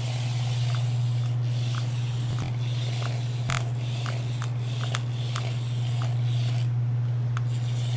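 A ride-on vehicle being driven, with a steady low hum and light clicks about twice a second. A sharper click comes about halfway through.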